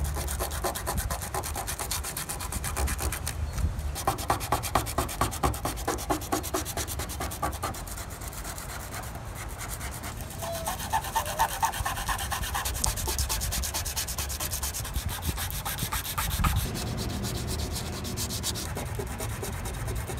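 100-grit sandpaper rubbed by hand in rapid back-and-forth strokes over small dented spots on a Honda Civic EF hatchback's door and front fender, scuffing through the paint and primer toward bare metal.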